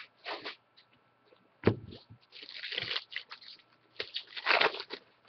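Trading cards being handled: shuffled in the hands and slid and laid on a table mat, in short bursts of rustling and scraping, with one sharp knock about a second and a half in.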